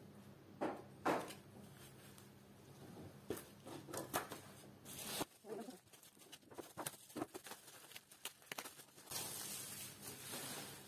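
Crinkling and rustling of kraft packing paper and plastic bubble wrap as a potted plant is unwrapped, in irregular crackles with a longer rustle near the end. Two sharp handling clicks come about a second in.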